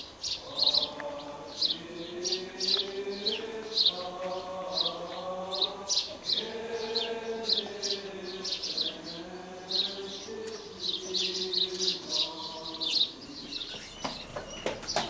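Small birds chirping continuously in quick downward-sliding chirps, with a choir chanting in long held notes underneath that fades out near the end.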